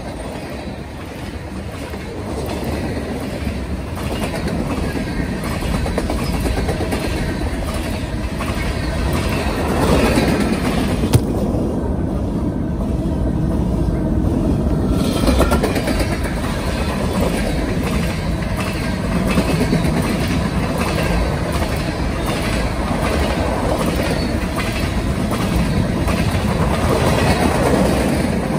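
Freight cars of a mixed freight train rolling past close by, the wheels clicking and clattering on the rails in a steady rhythm over a continuous rumble. The sound turns duller for a few seconds in the middle.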